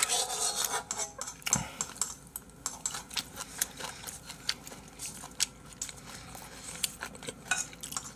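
Spoons clinking and scraping against a large frying pan and a small bowl as fried rice is scooped and eaten, in many small irregular clicks.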